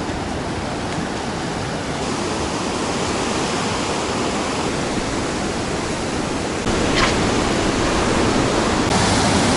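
Rough sea surf breaking along a rock breakwater: a steady wash of wave noise, a little louder near the end.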